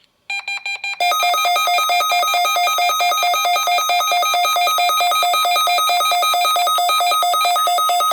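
NOAA Weather Radio alert alarm sounding for an Emergency Alert System Required Monthly Test: a few short beeps, then a loud, rapidly pulsing two-tone beeping for about seven seconds that cuts off suddenly near the end.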